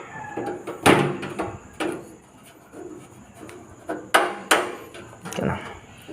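Sharp metallic clicks and knocks from hands working on a desktop PC case while opening it, several separate knocks, the loudest about a second in and about four seconds in.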